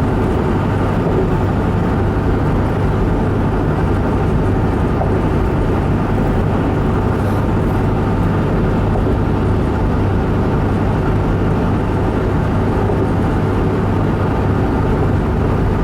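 Steady road and engine noise heard inside a truck's cabin cruising at highway speed, about 70 mph, with a constant low hum.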